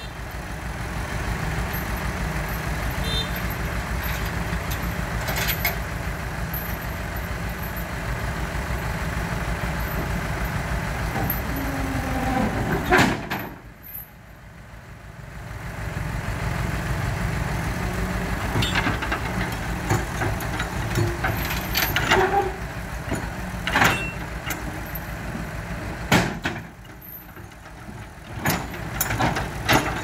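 Heavy diesel engine running steadily, dipping briefly about halfway through, with several loud metal clanks and bangs as the lowboy trailer's steel loading ramps are let down and pressed onto the ground.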